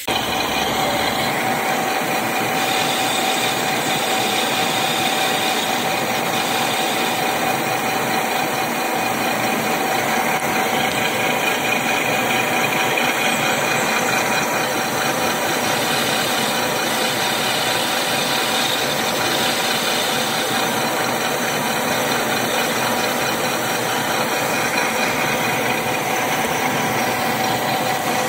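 Metal lathe running steadily while turning a small valve part for a high-pressure hand pump, with a constant whine over the machine's running noise.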